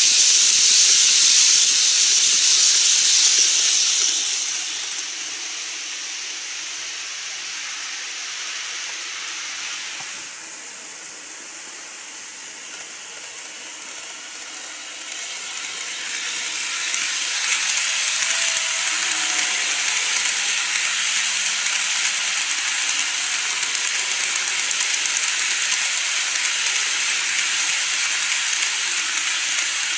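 TOMIX N-gauge model trains running on elevated plastic track, a steady hissing rattle of wheels and motors. It is loud as a train passes close at the start and fades over the first few seconds. It is quietest from about ten to fifteen seconds in, then builds again as a train comes round toward the camera.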